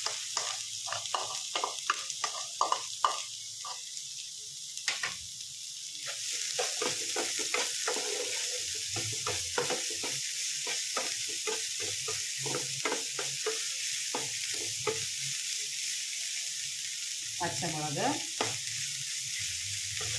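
Sliced onions sizzling in hot oil in a pan, a steady hiss, while a utensil stirs and scrapes them in quick repeated strokes.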